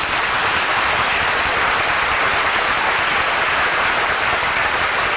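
Studio audience applauding steadily on an old radio broadcast recording.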